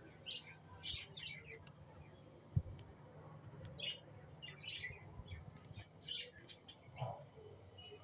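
Budgerigars chirping: short, high twitters in scattered clusters, with one sharp knock about two and a half seconds in.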